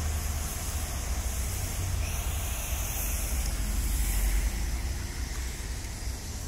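Steady traffic noise from cars passing on a rain-wet road, their tyres hissing on the wet asphalt, with wind rumbling on the microphone.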